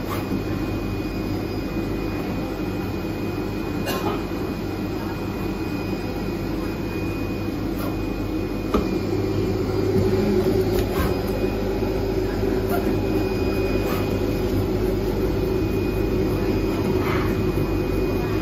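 IECHO PK0705 Plus flatbed cutting plotter running: a steady machine hum and whir with a few light clicks from the cutting head. The hum grows a little louder about nine seconds in.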